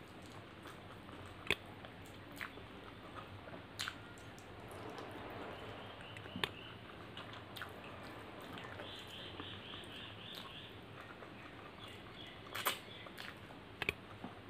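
Close-miked eating sounds: a person chewing mouthfuls of egg fried rice and mutton curry, with occasional sharp mouth clicks and lip smacks.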